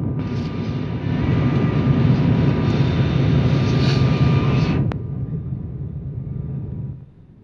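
Turboprop airliner's engines and propellers heard inside the cabin: a loud steady noise with a whine. It drops abruptly about five seconds in and again near the end.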